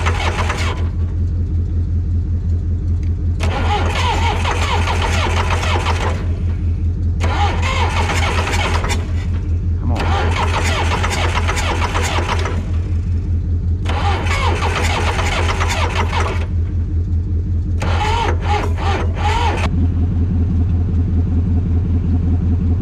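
John Deere backhoe's diesel engine running just after catching on ether, a steady low rumble with louder stretches coming and going every few seconds.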